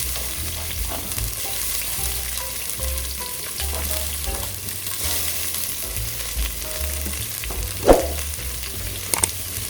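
Onion frying in hot oil in a pan, a steady sizzle, with a brief louder clatter about eight seconds in.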